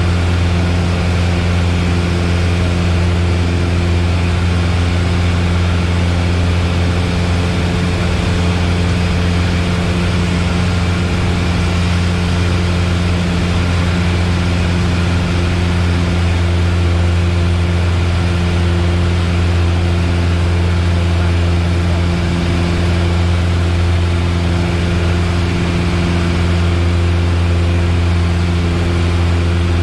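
Piper Warrior's four-cylinder Lycoming O-320 engine and propeller running at a steady setting, heard as a loud, unchanging drone inside the cockpit, with a low engine hum and a hiss of air over the cabin.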